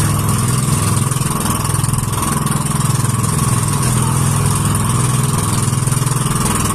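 Engine of a motorised outrigger boat running steadily at cruising speed, over a constant hiss of wind and water.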